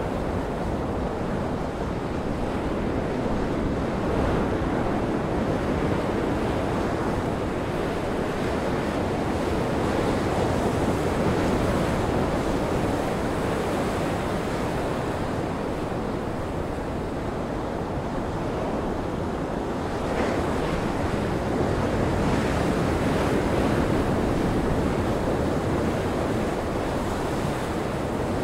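Heavy surf breaking and gale-force wind blowing over the sea, with wind buffeting the microphone. A steady rushing noise that swells and eases every few seconds.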